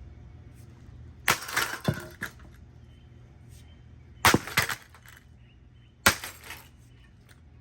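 Three hard blows of an aluminum broom handle smashing a Heritage M52UL ceiling fan, a few seconds apart, each strike followed by a short clatter of breaking, rattling parts.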